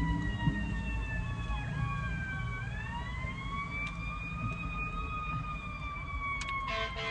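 Emergency vehicle siren wailing in a slow sweep, heard from inside a car: the pitch falls for a couple of seconds, then rises and slowly falls again, with a brief run of quick fainter chirps about three seconds in. A low rumble lies underneath.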